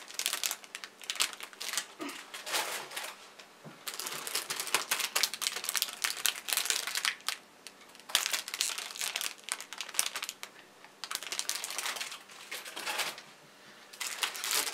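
Clear plastic bags of model-kit runners crinkling as they are handled and lifted out of the box, in irregular bursts with short pauses between them.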